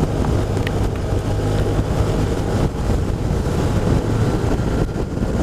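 BMW R1200RT's flat-twin engine running at a steady cruise with a low, even hum, under heavy wind rush on the microphone while riding on a wet road.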